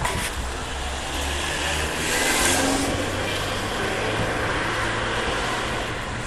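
Road traffic: a car passing on the street, its noise swelling about two seconds in and then fading, over a low steady engine hum.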